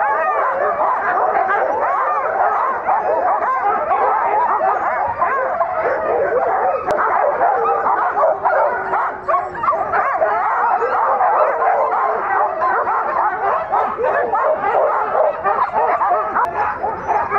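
A harnessed team of sled huskies barking and yipping all at once in a dense, unbroken din, the excited clamour of sled dogs waiting on the gangline to run.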